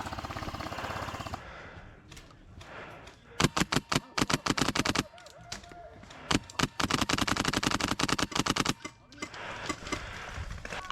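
Airsoft gun firing on full auto: a fainter rapid rattle at the start, then a long, loud burst about three and a half seconds in, a single shot, and a second long burst from about six and a half seconds.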